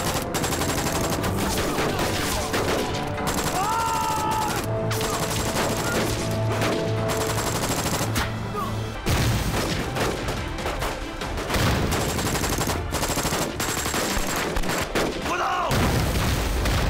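Heavy battle gunfire: a machine gun and several rifles firing rapidly and without let-up, the shots overlapping into a continuous volley.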